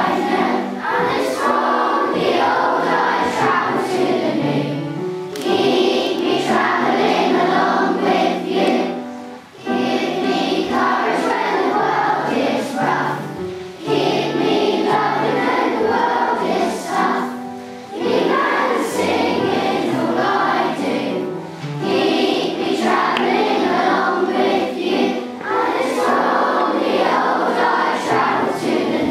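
Schoolchildren singing a song together as a choir, in sung phrases with short breaks between lines.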